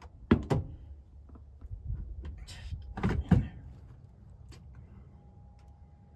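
A handful of sharp knocks and clunks, two close together near the start and two louder ones about halfway, with a brief scrape between them: parts or tools being handled during garage work.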